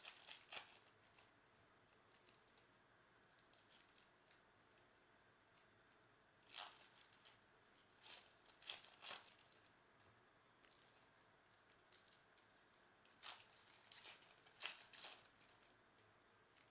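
Foil trading-card pack wrappers being torn open and crinkled by hand, in several short, quiet bursts of tearing and crinkling with pauses between.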